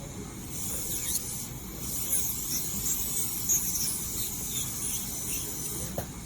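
Dental handpiece with a bur grinding the surface of a PMMA acrylic provisional crown, roughening it before a margin repair, as a steady hissing grind.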